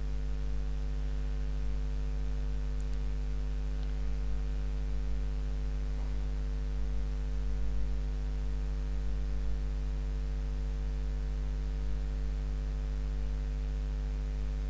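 Steady electrical mains hum: a low 50 Hz buzz with a row of higher overtones, unchanging throughout, with a few faint clicks.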